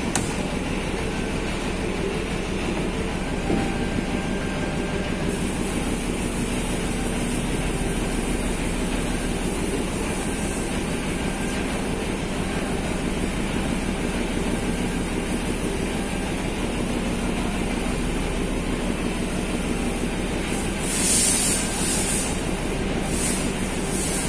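Vapor blasting cabinet running: a steady hiss of the wet abrasive blast over the machine's low churning hum. The hiss turns sharper about five seconds in, and comes in a few louder bursts near the end.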